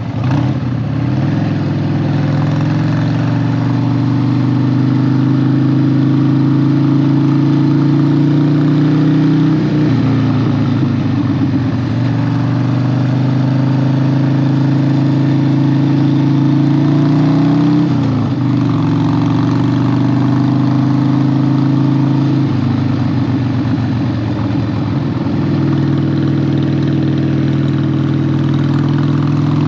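Harley-Davidson 1200 V-twin motorcycle engine under way, heard raw from the bike. The revs climb steadily and drop sharply twice, about a third and about two thirds of the way through, as it changes up through the gears. After that it runs at a fairly steady pitch.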